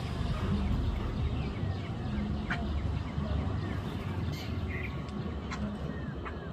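Jungle babblers calling: a scatter of short, sharp chirps and squeaks, several standing out, over a steady low rumble.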